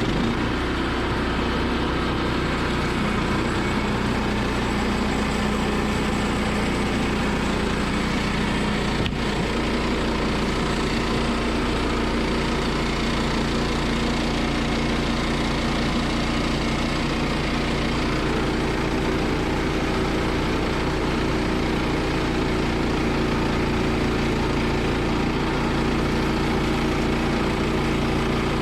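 The small gas engine of a Woodland Mills portable band sawmill running steadily at a constant speed.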